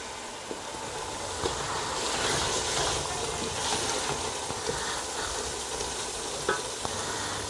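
Onion-tomato masala sizzling steadily in hot oil in an aluminium pot while a wooden spoon stirs it, with a faint knock or two. The masala is being fried down (bhuna) until the oil separates.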